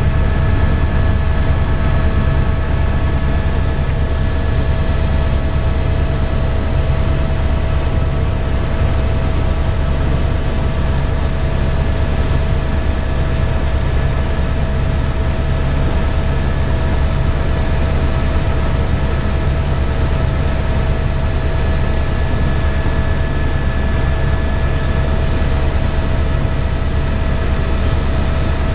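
Tour helicopter in steady flight: a loud, even rotor drone with a steady turbine whine on top.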